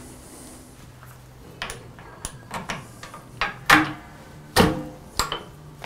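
Irregular metal knocks and clinks, about eight of them, as the chuck and fittings at the headstock of a Jet wood lathe are handled while the lathe stands still. The loudest two, near the middle, ring briefly. A faint low steady hum lies underneath.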